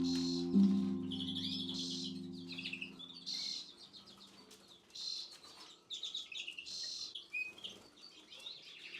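Small cage birds chirping in short, high calls every second or so. A ringing tone sounds near the start and fades out within the first three seconds.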